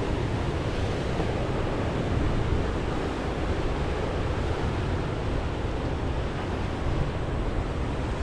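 Rough sea surf washing against a rocky shore, a steady wash with wind rumbling on the microphone.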